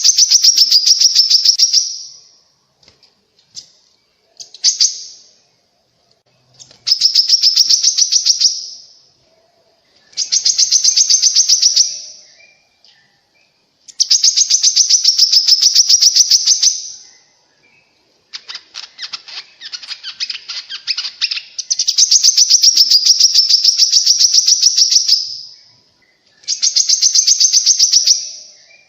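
Song of a korlap, an Indonesian songbird, played as a lure recording: loud, high, fast trills of evenly spaced notes, each phrase lasting two to three seconds, repeated again and again with short pauses between.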